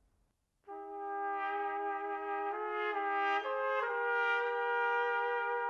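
A trumpet duet on a Bach Stradivarius 190S43 B-flat trumpet with a one-piece yellow brass bell: two overdubbed parts play together in harmony. They come in together just over half a second in and move through a few note changes, each note held smoothly.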